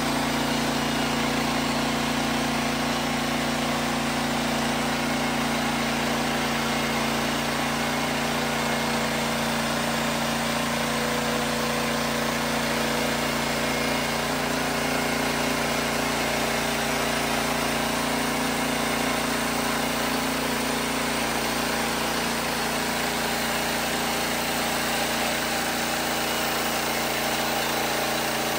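Wood-Mizer LX portable band sawmill running steadily, its engine under even load as the band blade cuts along a pine log.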